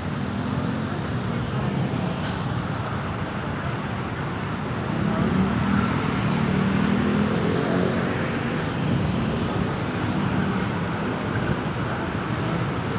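Road traffic noise from passing vehicles. It swells louder in the middle, as a vehicle goes by, then settles back.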